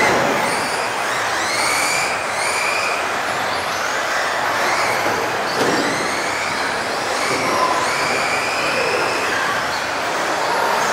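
Several electric RC off-road buggies racing around an indoor track. Their motors whine, rising and falling in pitch as the cars speed up and slow down, over a steady hiss.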